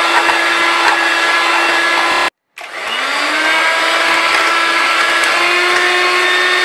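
Electric hand mixer whirring steadily at speed, its beaters churning cream and mango pulp in a steel bowl. The whine cuts out for a moment about two seconds in, then rises back up to speed.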